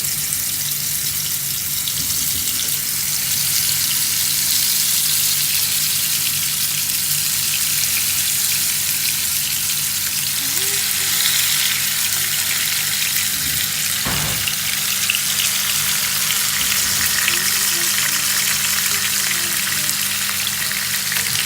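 Marinated chicken pieces frying in hot olive oil: a loud, steady sizzle, with one brief knock about fourteen seconds in.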